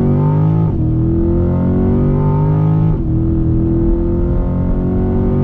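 C8 Corvette's V8 accelerating hard, heard from inside the cabin. The engine note climbs in pitch, drops at an upshift about a second in, climbs again, and drops at a second upshift about three seconds in.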